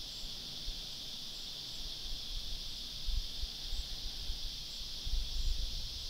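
Steady high-pitched buzzing drone of a cicada chorus, with a low rumble of wind on the microphone now and then.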